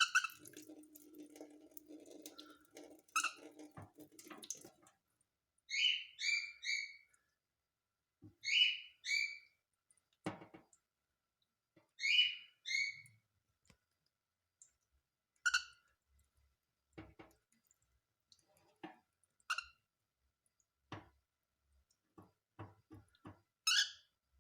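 Cockatiel chirping: short calls in groups of two or three, then single calls spread further apart, with scattered light clicks between them. A low steady sound runs for the first five seconds, then stops.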